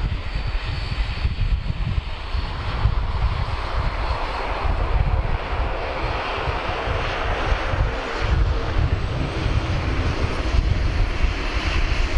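Jet airliner engine noise: a steady rushing sound with heavy low rumble, and a faint high whine that rises slowly in pitch during the second half.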